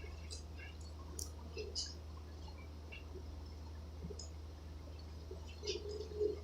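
Faint wet mouth clicks and chewing sounds from someone eating a sandwich, scattered and irregular, over a steady low hum.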